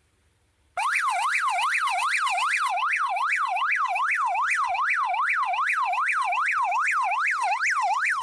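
Three-tone electronic motorcycle siren horn, freshly wired in and being test-sounded, comes on suddenly about a second in with a loud fast yelp: its pitch sweeps up and down about two to three times a second.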